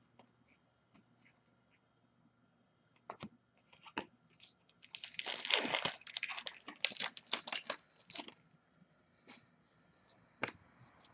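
Trading card pack wrapper and cards being handled. It is nearly silent at first, then a few clicks, then a stretch of crinkling and rustling about five to eight seconds in, and scattered taps near the end.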